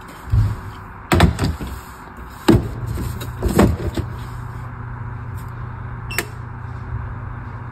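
Hard plastic knocks and clunks as a Waterdrop G3P600 reverse-osmosis filter cartridge is seated in the under-sink purifier and its twist-lock handle is turned, several sharp thuds in the first four seconds, then a single click about six seconds in as the button on top of the unit is pressed. A low steady hum sets in about two and a half seconds in.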